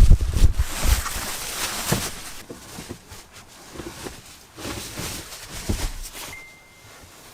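Thumps, knocks and scraping of a mounted winter tire and wheel being pushed through the folded rear seat into a car's trunk; the loudest bumps come in the first two seconds. A short steady beep sounds near the end.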